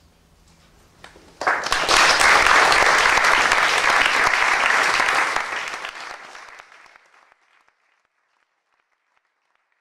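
Audience applause, starting suddenly about a second and a half in and fading away after about six seconds.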